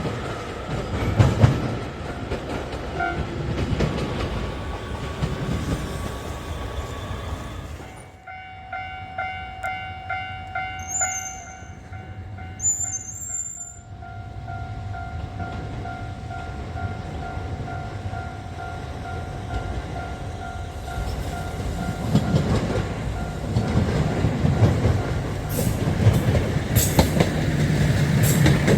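Train rumble and wheel noise on the rails, then a sudden cut to a level-crossing warning bell ringing in a steady repeating pulse. A train approaches under the bell from about halfway through and passes loudly near the end, its wheels clacking over the rail joints.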